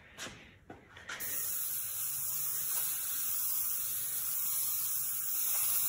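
Handheld refillable aerosol paint sprayer giving a few short sputtering spurts, then about a second in a steady hiss of paint spraying.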